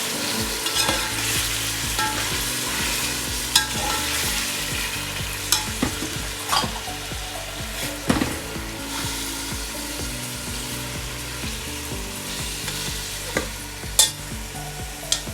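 Raw chicken pieces and ginger-garlic paste sizzling in hot oil in a pan as they are stir-fried, with a steady hiss and the spoon scraping and knocking against the pan every few seconds.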